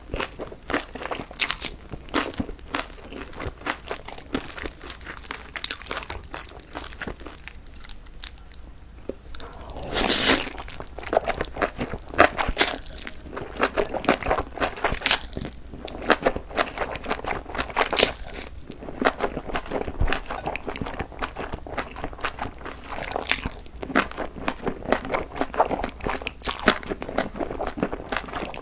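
A person chewing and biting crunchy food close to the microphone, with a steady stream of irregular crunches and crackles and a louder, denser crunch about ten seconds in.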